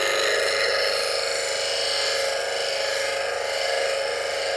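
Bench grinder with a CBN wheel running while the steel edge of a gouge is ground on it: a steady grinding hiss over the motor's steady tone.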